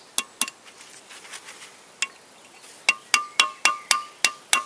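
Hammer tapping a metal drift against the crankshaft main bearing shells in a GM Ecotec 2.2 L engine block, driving the shells out of their saddles. Each tap is a sharp metallic clink with a short ring: two taps at the start, a single one about two seconds in, then a quick run of about eight taps, four or five a second, near the end.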